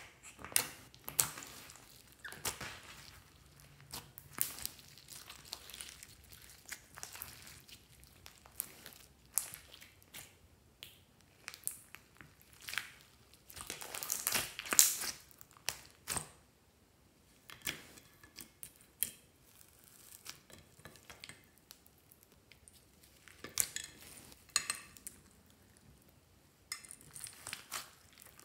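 Hands squishing and kneading clear slime loaded with glitter, plastic flakes and foam beads, making irregular sticky pops, clicks and crackles. The loudest run of crackling comes about halfway through, as the slime is squeezed into a ball.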